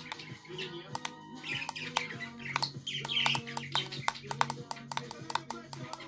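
Cockatiel tapping its beak against a hand mirror in quick, irregular clicks, with a couple of short chirps about a second and a half and three seconds in. Background music plays throughout.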